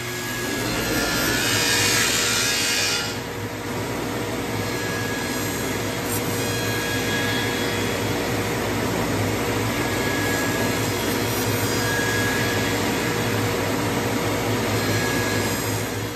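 Wooden-propeller copy lathe running, its spinning cutter carving a laminated wood propeller blank: a steady machine drone with the rasp of wood being cut. The cutting is louder and harsher for the first few seconds, then settles to an even level.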